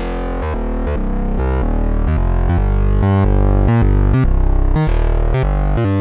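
Sequential OB-6 analog synthesizer playing a deep bass patch: a quick bass line whose notes change several times a second.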